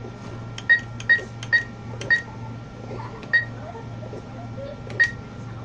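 ATM keypad beeping at each key press as a withdrawal amount is keyed in: six short high beeps, four in quick succession and then two more spaced out, over a steady low hum.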